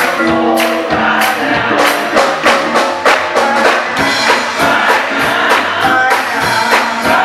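Gospel choir singing with the church band, a tambourine and drums keeping a steady beat of about two strokes a second.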